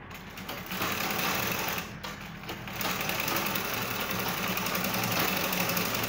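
Black sewing machine on a treadle stand running, stitching a zipper seam into a gown, in steady runs broken by two brief pauses near the start.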